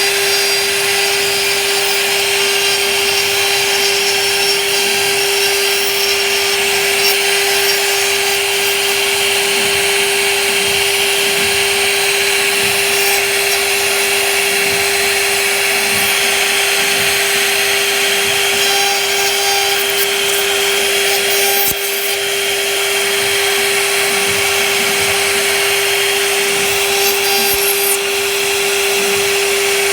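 CNC router with a lathe-style rotary axis cutting wood: the spindle runs with a steady whine over a continuous cutting hiss.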